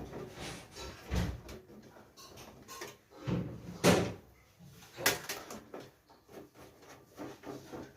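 Parts of a desktop PC being handled as it is taken apart: several short knocks and clunks, the loudest about four seconds in, with light rubbing and scraping between them.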